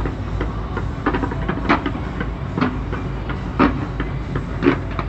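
Fireworks going off without a break: a dense crackle over a steady low rumble, with four louder bangs about a second apart.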